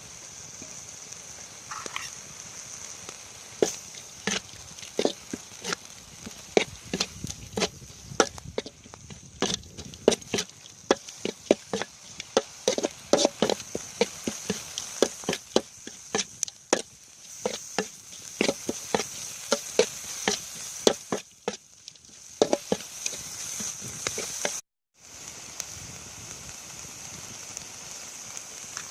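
Knife chopping field-rat meat for larb on a wooden board: many sharp, irregular knocks over a steady high hiss. The knocks stop a few seconds before the end, leaving only the hiss.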